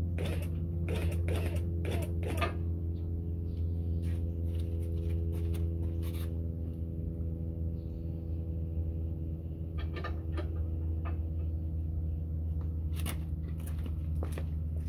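Steady low machine hum, with scattered sharp clicks and knocks from handling the steel frame of a QuickJack 5000 portable car lift.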